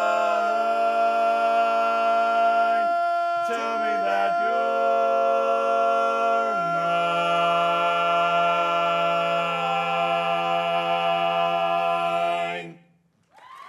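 A vocal quartet singing a cappella, closing the song on long held chords. The final chord is held about six seconds, then all voices cut off together near the end. Applause begins just after.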